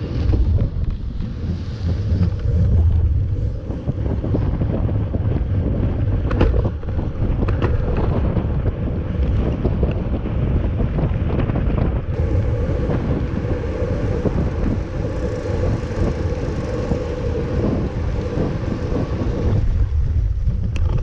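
Wind buffeting the microphone of a camera mounted on a mountain bike as it is ridden along a beach, a steady loud rumble with a few sharp knocks from the bike a little past the middle.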